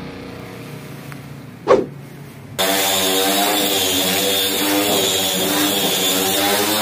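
A brief sharp knock about a second and a half in. About a second later a hand-held disc sander cuts in loud and runs steadily with a wavering pitch, grinding scorched paint off a car's bare steel bonnet.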